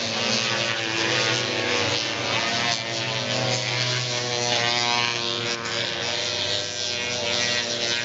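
Single-cylinder racing snowmobile engines running at speed: a steady engine drone whose pitch drifts slightly up and down.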